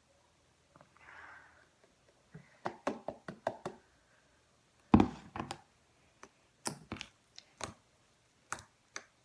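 A series of knocks and clicks from a laundry detergent bottle and slime container being handled on a tabletop, with one louder thump about five seconds in.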